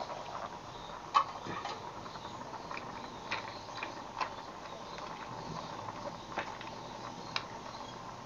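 Scattered light clicks and rustles as chili leaves are pressed down among mussel shells in a cooking pot, over a steady faint hum.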